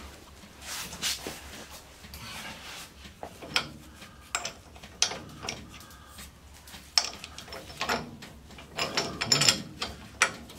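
Scattered metal clinks, knocks and scrapes of sockets and hand tools handled against a truck's steel front suspension parts, with a quick cluster of clicks about nine seconds in.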